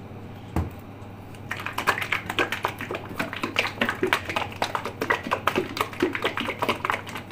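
Lidded plastic container of egg and yogurt sauce shaken hard to mix it: a quick run of rattling knocks, several a second, starting about a second and a half in after one single knock.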